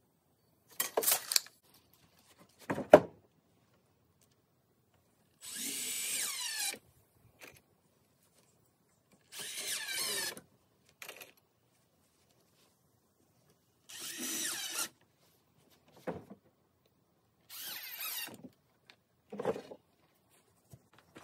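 Cordless drill running in four short bursts of about a second each as it drives into a wooden board, its pitch wavering as it loads and spins. Before the drilling there is a scratchy rattle about a second in and a sharp knock near three seconds, with a few lighter knocks between the later bursts.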